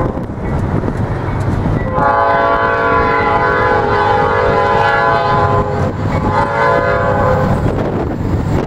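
Norfolk Southern freight locomotive's air horn sounding a long chord starting about two seconds in, then, after a short break, a second blast, over a low rumble.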